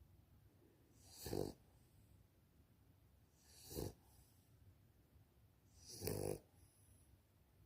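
A Victorian bulldog snoring: three snores about two and a half seconds apart, each swelling up and then stopping.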